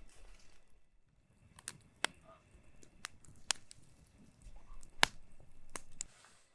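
A handful of sharp clicks and knocks at uneven intervals, the loudest about five seconds in, with faint rustling in between.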